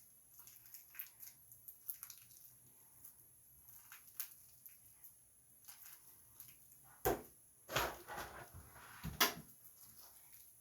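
Hands stretching and working glow-in-the-dark slime: faint sticky clicks throughout, with a sharp knock about seven seconds in, a short squelchy rustle just after, and another knock a little after nine seconds.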